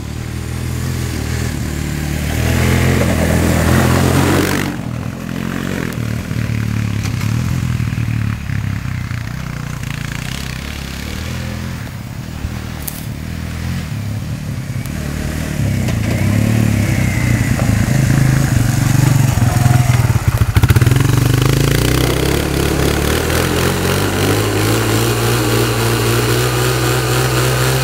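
Sport quad (ATV) engines running and revving as they are ridden, loudest about four seconds in and again around twenty seconds in. In the last few seconds a Suzuki QuadSport's single-cylinder engine runs steadily.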